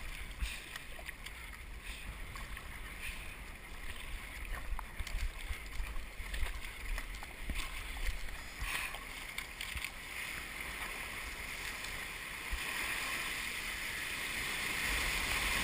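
Paddle strokes splashing and water washing against the hull of an Epic V10 Sport surf ski in choppy ocean swell, with irregular splashes through the middle and a louder rush of water building near the end.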